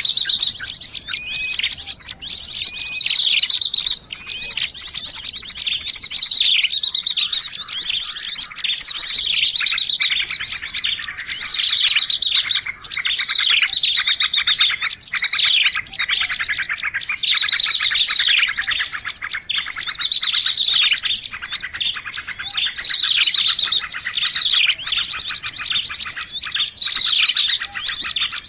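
Many small songbirds chirping and trilling at once in a dense, unbroken chorus of rapid, high notes: a small-bird lure call recording.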